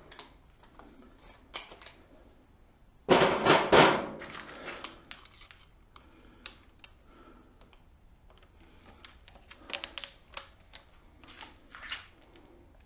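Clicks and rattling of a spade bit being changed in the keyless chuck of a Ridgid Max Output cordless hammer drill, with a louder burst of clicking about three seconds in and scattered small clicks near the end.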